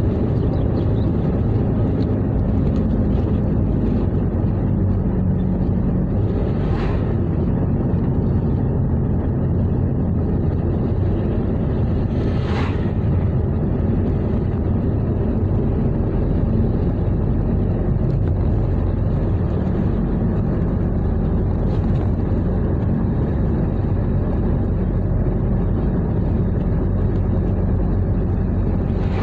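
Steady road and engine noise of a car driving along the highway, with two brief whooshes about seven and twelve seconds in.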